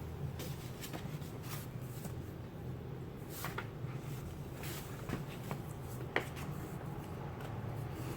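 Faint rustling and scattered light clicks of hands handling a fabric tie strap on a bound Bible, over a steady low hum.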